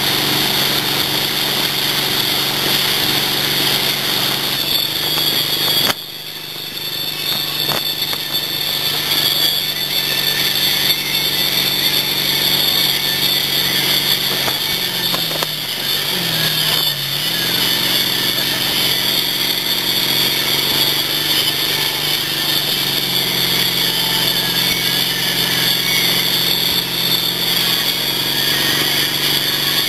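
MasterCraft ski boat's inboard engine running steadily under load, towing a wakeboarder, with a steady hiss over it. About halfway through, the engine note dips and comes back up, then rises a little again a few seconds later.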